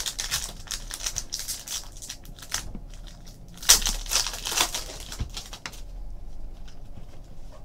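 Crinkling and tearing of trading-card pack wrappers as packs are opened by hand, in a run of short crackles with the loudest burst about four seconds in.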